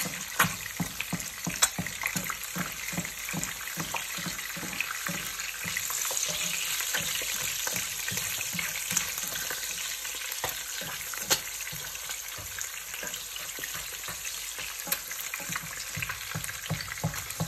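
Eggs frying in plenty of hot oil in a non-stick pan: a steady sizzle with scattered crackles and pops. A slotted spatula works in the pan, scooping the hot oil over the eggs to baste them, with soft strokes about twice a second through the first half.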